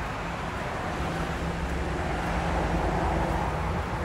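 Steady low rumble of road traffic passing below, outdoors.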